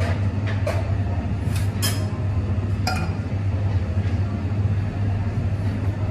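Cafe back-bar sounds: a steady low machine hum under a handful of sharp clinks of cups and metal milk jugs, most of them in the first three seconds.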